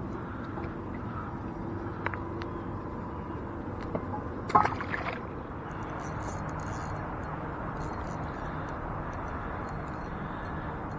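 Steady rush of flowing river water, with a few short clicks and a brief louder burst about four and a half seconds in.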